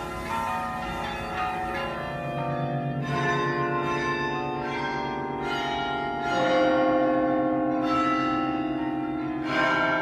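Tower bells of a carillon ringing close by: struck notes of different pitches about every second, each note ringing on under the next, as in a played tune.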